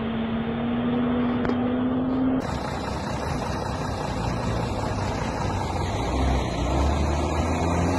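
Diesel truck engine running, with a low rumble that grows stronger about six seconds in. The first couple of seconds hold a different steady hum that stops abruptly at an edit.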